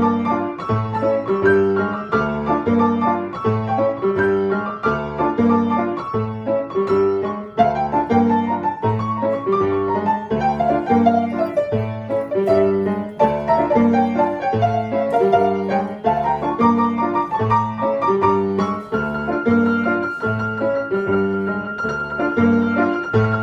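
Acoustic piano played as a duet, improvising on a Latin song: a repeating rhythmic bass figure under chords and a moving melody.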